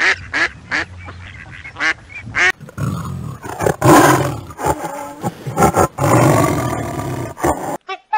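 A bar-headed goose giving a series of short honks for the first two and a half seconds. Then a tiger growls and roars, loud and rough, in several long calls for about five seconds. Flamingos start honking right at the end.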